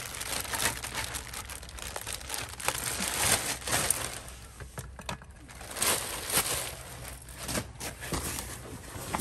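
Clear plastic packaging bag crinkling and rustling in irregular bursts as it is pulled off a folded electric scooter.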